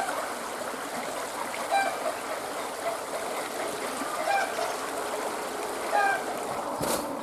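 Rain-swollen creek running high, a steady rush of water. Four short, faint calls sound over it, about two seconds apart, and there is a sharp knock near the end.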